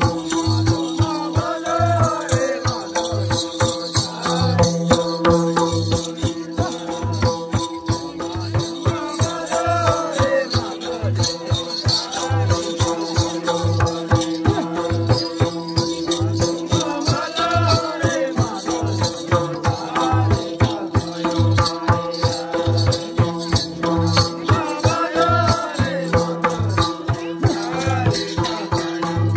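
Music with a steady low beat and fast percussion over a held drone, with a wavering melodic phrase that comes back every few seconds.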